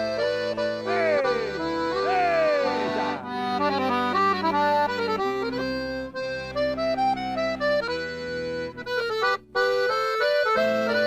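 Accordion (sanfona) playing a forró tune, runs of notes over held chords, with a brief break near the end.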